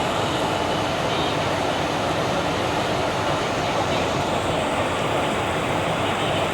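ICF passenger coach running along the track: a steady rumble and rush of wheel and rail noise.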